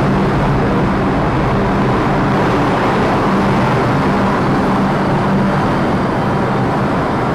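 New York City subway train noise on the platform: a steady loud rumble with low humming tones that fade in and out.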